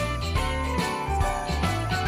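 Background music with a steady beat, a bass line and jingling bells.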